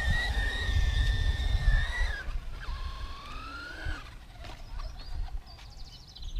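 Electric motor whine of a radio-controlled car: a steady high whine for about two seconds that dips and cuts off, then a lower whine rising in pitch for about a second and a half, over a low rumble in the first half.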